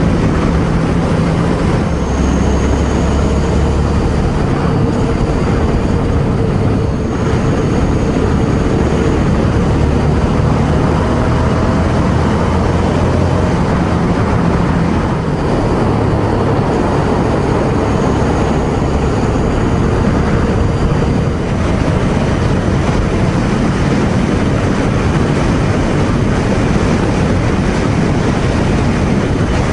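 Ducati Scrambler Sixty2's 399 cc air-cooled L-twin running steadily at expressway cruising speed, mixed with wind and road rush.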